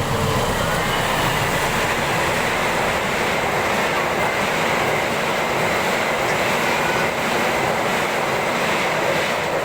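A train passing close by, its wheels on the rails making a loud, steady rushing noise.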